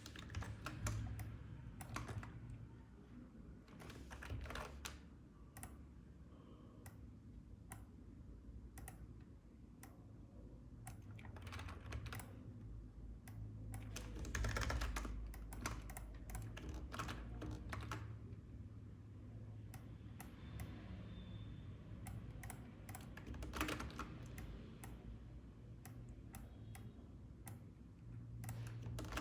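Computer keyboard keys clicking at an irregular pace, sometimes in quick clusters and sometimes singly, over a low steady hum.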